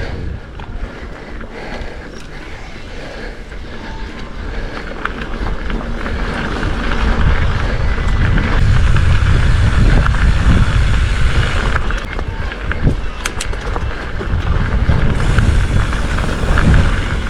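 Specialized Fuse hardtail mountain bike being ridden down dirt singletrack: wind rumbling on the microphone and tyres rolling over the trail, getting louder as speed builds about six seconds in, with a few sharp clicks of the bike rattling.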